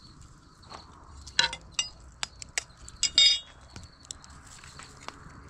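Eggs tapped against a large iron pan to crack their shells: a string of sharp clicks and clinks, the loudest a short ringing clink about three seconds in.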